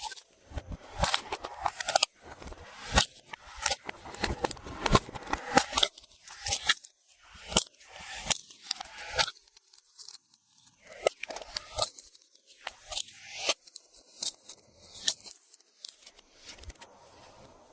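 Hands working slime and its mix-ins, making a dense, irregular run of crisp clicks, crackles and crunches that thins out after about nine seconds.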